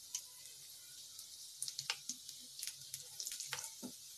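Moong and chana dal batter balls deep-frying in hot oil in an iron kadai: a steady soft sizzle with scattered sharp pops and crackles as the batter puffs up.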